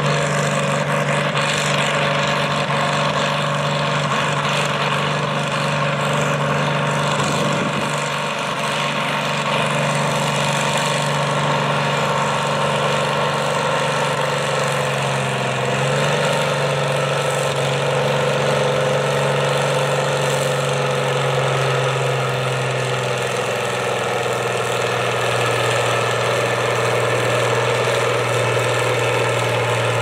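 A farm stock pulling tractor's diesel engine runs hard and steadily under load as it drags a weight-transfer sled, putting out black exhaust smoke. The engine note drops slightly about halfway through and again later as the sled bogs it down.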